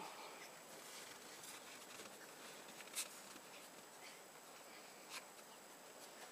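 Near silence, with two faint short clicks: one about three seconds in and a weaker one near five seconds.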